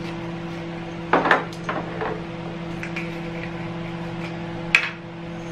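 Small glass spice jars being handled on a kitchen counter: a quick cluster of clicks and clinks from lid and glass about a second in, a few lighter taps, and one sharp click near the end, over a steady low hum.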